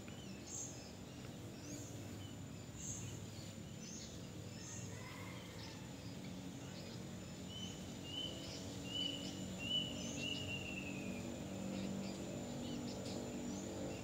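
Birds calling in the trees: short high chirps, then a run of about five repeated whistled notes in the middle, over a faint steady high insect whine and a low hum.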